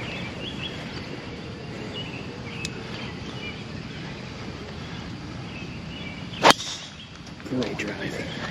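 A golf club strikes a ball once with a sharp crack about six and a half seconds in, over faint birdsong.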